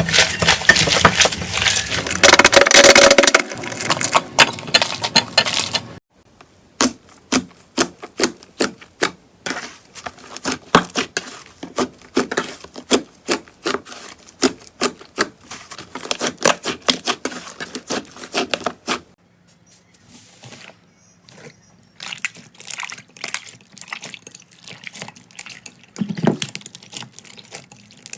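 Slime being squeezed and pressed by hand, giving dense crackling for the first few seconds, then long runs of quick clicks and pops. There is a short quieter stretch near the end before the clicking starts again.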